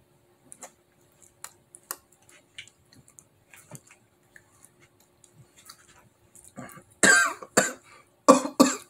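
A man coughs hard four times in the last two seconds, his throat set off by a swig of hot sauce. Before that come only faint mouth clicks.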